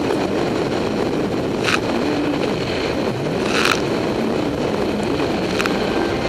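Kawasaki Ultra LX jet ski's four-stroke engine running at speed under a steady rush of water, its pitch wavering slightly. Three sharp slaps as the hull crosses the chop, about two seconds apart.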